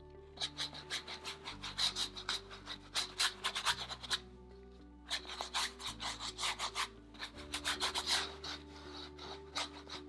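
Big flat paintbrush scrubbing thin, watery acrylic paint back and forth on a canvas: quick rubbing strokes in three spells, with soft background music underneath.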